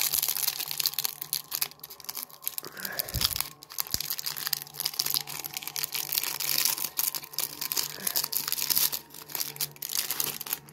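Clear plastic wrapping around a stack of basketball trading cards crinkling and tearing as it is pulled open by hand.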